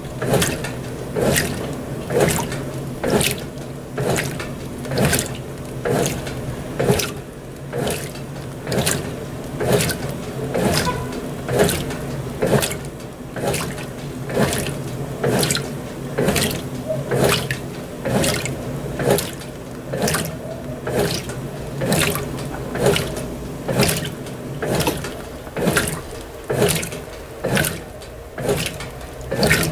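Brastemp BWT12 top-loading washing machine agitating a load on a low water level: water swishes in regular strokes about once a second over a steady motor hum.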